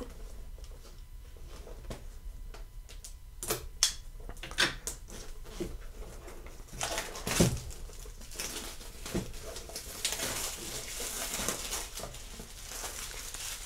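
Plastic shrink-wrap being picked at with a fingernail and peeled off a cardboard box: scattered scratches and clicks, then steady crinkling of the film from about eight seconds in.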